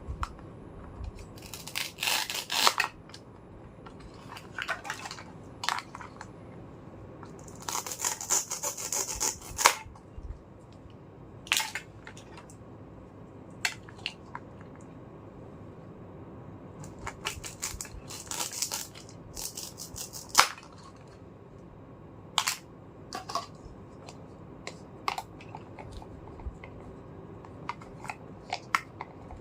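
Small plastic toy kitchen pieces being handled: scattered sharp clicks and taps, with a few longer bursts of rustling about 2, 8 to 10 and 18 seconds in.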